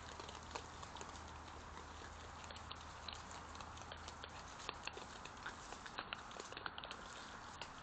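European badgers feeding on a lawn at close range: irregular small clicks and crunches of chewing and snuffling over a steady hiss.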